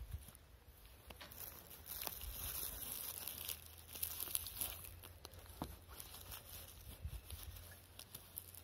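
Fabric gazebo canopy rustling and crinkling as hands work its corner flap and strap onto the frame pole, with a few small clicks.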